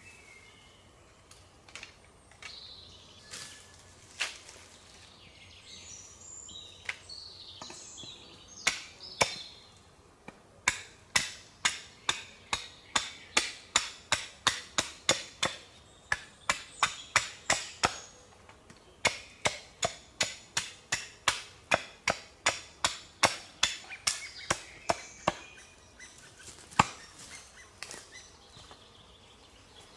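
Wood being chopped on a stump chopping block: a few scattered knocks, then from about ten seconds in a long run of quick, sharp blows, about two or three a second, broken by a couple of short pauses. Birds chirp in the background.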